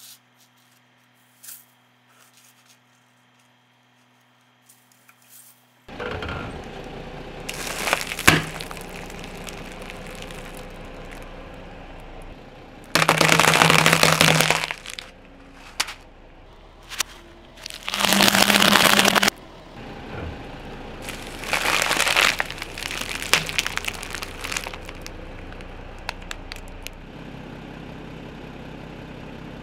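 Objects being crushed under a car's tyre. Loud cracking and crunching comes in several bursts, the longest about two seconds each, over steady background noise that starts about six seconds in after near quiet.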